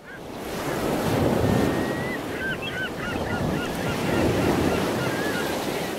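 Surf sound effect of ocean waves washing, a rushing noise that swells up, dips in the middle and swells again. A string of short, high chirping calls sounds over it from about two seconds in.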